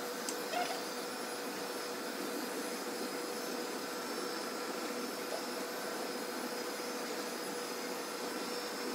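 Pureatic N5 robot vacuum-mop running in mopping mode: a steady whir from its fan and motors, with a constant mid-pitched hum.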